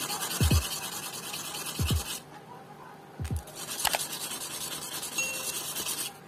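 A small piece of LCD glass rubbed back and forth by hand on sandpaper, grinding it down to size: a steady gritty scratching that stops about two seconds in and starts again about a second later. Under it, background music with a low falling beat about every one and a half seconds.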